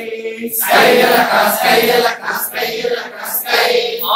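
A group of men chanting an action song together in unison, led by one man's loud voice.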